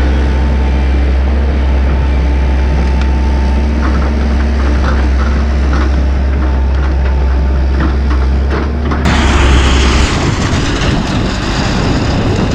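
Diesel engine of a JCB JS130 tracked excavator running with a steady low drone while the machine moves off across the field. About nine seconds in the drone gives way to a loud rushing hiss.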